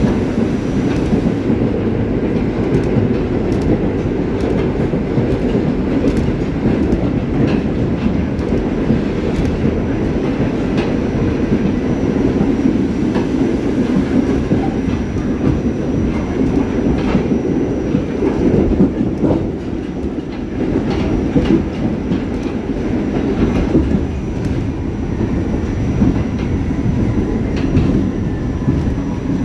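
Staten Island Railway R44 subway train running along the line: a steady rumble of wheels on rail with irregular clicks as the wheels cross rail joints.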